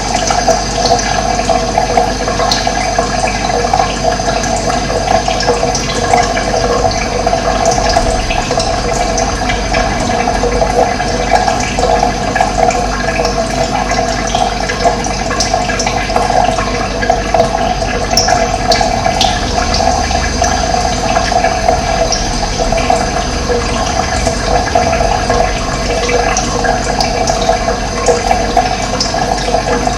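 Running water, a steady rushing flow with no change in strength, with a few brief, faint high chirps of birds over it.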